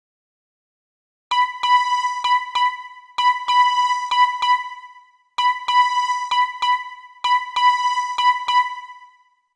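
Siemens CX70 ringtone: a synthesised tone struck on one pitch in quick runs of five notes, repeated four times with each run fading away, starting about a second in.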